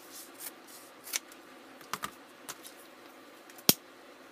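Scissors snipping through grosgrain ribbon in a few separate short cuts, then a single sharp click near the end, the loudest sound, as a disposable lighter is lit.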